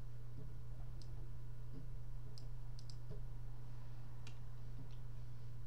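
A computer mouse clicking several times at irregular intervals, over a steady low hum.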